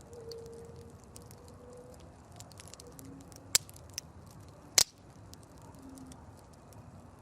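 Campfire crackling, with scattered small snaps of burning wood and two loud sharp pops, about three and a half and nearly five seconds in.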